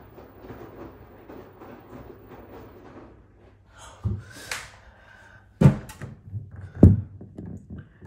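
Knocks and thunks from handling around a washing machine: a light knock and a brief scraping swish about halfway through, then two loud thunks about a second apart, with small clicks after them.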